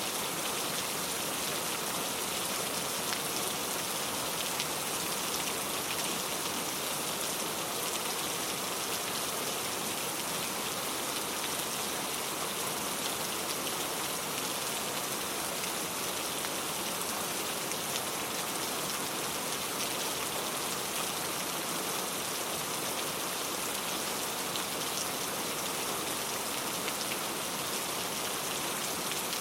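Heavy rain falling steadily, a dense even hiss with many small drop patters throughout.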